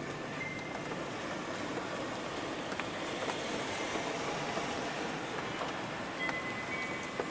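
Steady rain falling, an even hiss with no thunder, with a few faint chime notes ringing near the start and again near the end.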